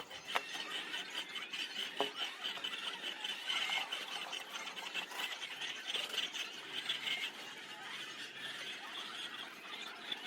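A flock of laying hens calling all at once, a steady high-pitched chatter, with a couple of brief knocks early on.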